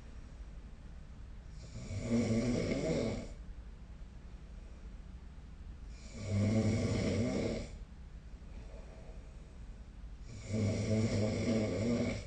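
A sleeping person snoring: three snores evenly spaced about four and a half seconds apart, each lasting under two seconds, with a low buzz and a breathy hiss.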